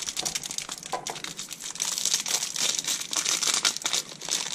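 Plastic toy packaging crinkling and tearing as it is cut and pulled open, a dense irregular crackle that grows louder about two seconds in.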